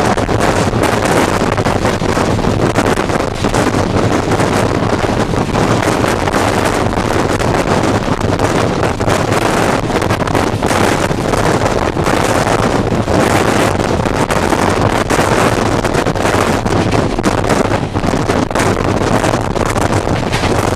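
Passenger train running at about 105 km/h, heard from an open coach doorway: a steady, loud rush of wind buffeting the microphone over the rolling noise of the coach on the track, with many short, irregular knocks.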